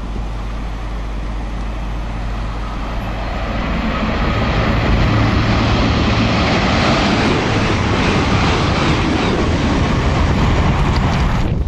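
Virgin Trains Class 221 Super Voyager diesel-electric unit approaching and passing through at speed. A rushing of wheels on rail over a low engine hum swells from about four seconds in and stays loud until it cuts off near the end.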